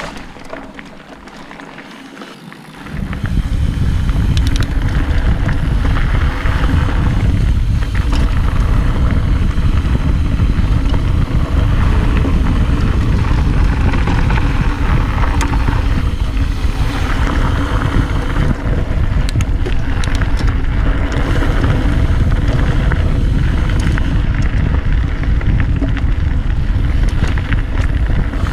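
Wind buffeting an action-camera microphone on a fast mountain-bike descent, a loud steady rumble that comes in about three seconds in, over the hiss of tyres on a dirt trail and scattered clicks and rattles from the bike over bumps.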